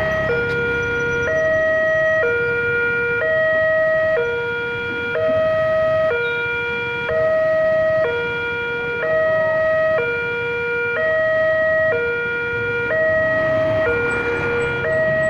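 Railway level-crossing warning alarm sounding a steady electronic two-tone hi-lo signal, alternating between a higher and a lower tone about once a second. It signals that the crossing is closed for an approaching train.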